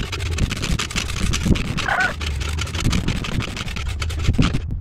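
Wind buffeting the microphone: a steady rushing noise with a low rumble under it that cuts out just before the end. A short animal call sounds about two seconds in.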